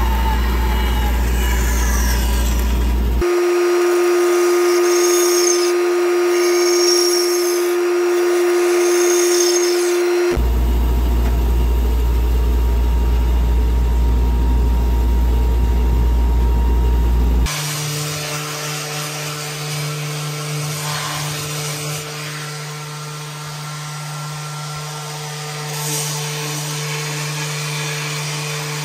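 Woodshop power tools, one after another. A bandsaw runs with a deep steady hum as it cuts a walnut board. For several seconds early on it gives way to a different steady machine tone, then returns. About two-thirds of the way in, it changes to a somewhat quieter random orbit sander with a dust-extraction hose, running steadily on walnut.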